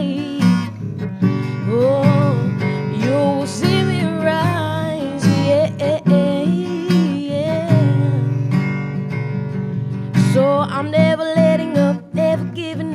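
Acoustic guitar strummed in a steady rhythm, with a woman singing a melody over it through a microphone.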